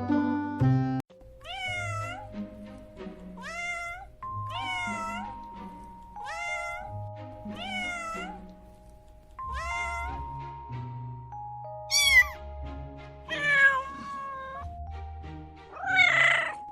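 A domestic cat meowing again and again: the same short mew, rising then falling in pitch, repeats about every 1.3 s through the first half. Several louder, longer meows follow near the end. Background music with steady held notes runs underneath.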